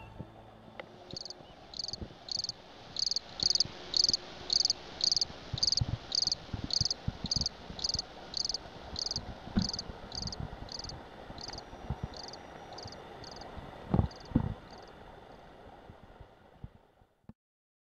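A cricket chirping steadily, about two high chirps a second, fading out near the end. Under it a faint low rumble, with two dull thumps a little before the chirping stops.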